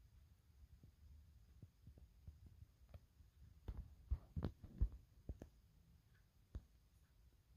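Faint low hum with a cluster of soft thumps and clicks in the middle, and one more a little later.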